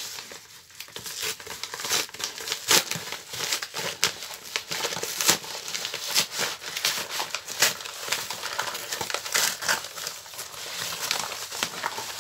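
A paper mailing envelope being pulled open by hand, its packaging crinkling and rustling in an irregular run of crackles, with a few louder crackles and small rips.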